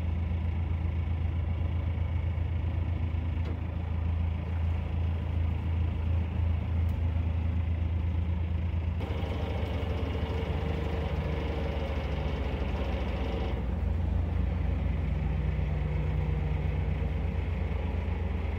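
Narrowboat engine running steadily as the boat moves slowly forward, with a low, even hum; for a few seconds in the middle its note turns busier and brighter, then settles back.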